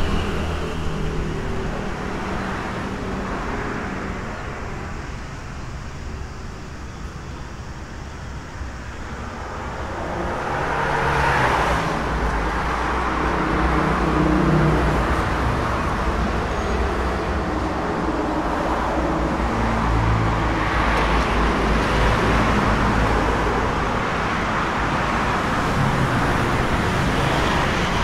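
Road traffic: motor vehicles running and passing, a steady engine and tyre rumble that swells about eleven seconds in and again around twenty seconds in.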